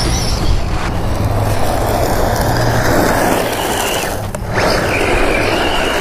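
VKAR SCTX10 V2 1/10 4WD short-course RC truck driving hard across grass and onto dirt, its 3650 brushless motor whining over the noise of tyres spraying dirt. A thin, steady high whine comes in about two-thirds of the way through. Wind buffets the microphone with a constant low rumble.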